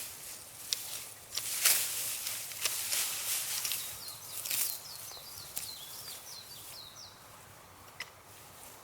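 Irregular rustling swishes of grass and weeds being cut by hand, strongest in the first half. In the middle a small bird sings a quick run of about ten high chirps.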